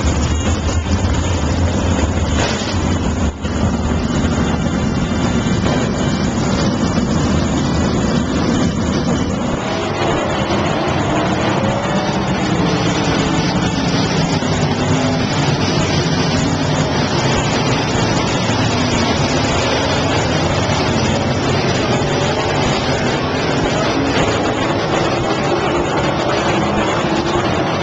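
Sprint car engines running at speed around a dirt oval, several at once, their pitch rising and falling as the cars go around.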